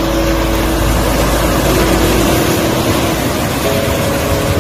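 Steady rush of breaking surf, with wind noise on the microphone that eases about two seconds in. A few long held notes of background music sit over it, changing pitch partway through.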